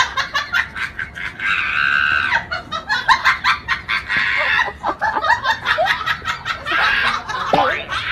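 A woman laughing hard in quick, repeated high-pitched bursts.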